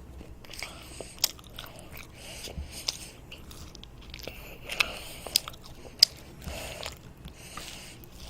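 Close-up eating sounds of a child biting and chewing toast: repeated crunchy chews with a few sharp crackles of crust.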